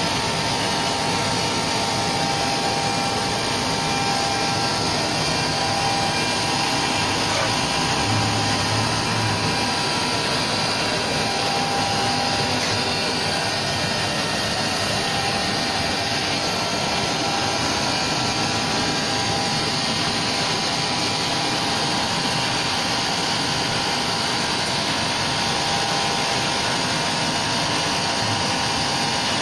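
CNC router machining a wooden board: a steady whir of the spindle and cutting tool that does not change.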